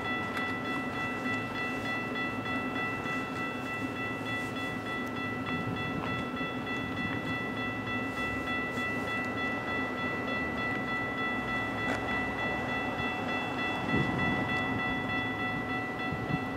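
A train rolling through the station with a steady rumble and a constant high-pitched whine.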